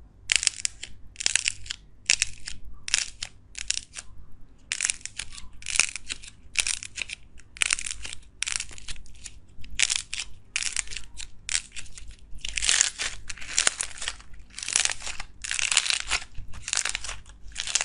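Four-colour slime stress balls squeezed and kneaded by hand, giving a crackling crunch with each squeeze, about one a second.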